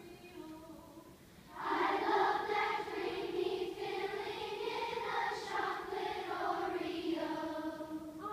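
Children's choir singing a vocal warm-up exercise. A quieter line of short stepped notes leads in. About a second and a half in, the full choir comes in loud and holds a sustained line that slowly falls in pitch, easing off near the end.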